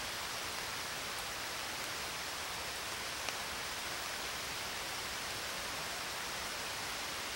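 Steady, even hiss of noise that does not change, with a couple of faint ticks.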